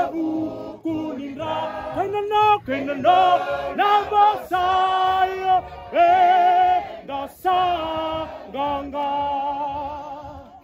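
A group of men and women singing a hymn of praise together in harmony, with long held notes; the singing fades out near the end.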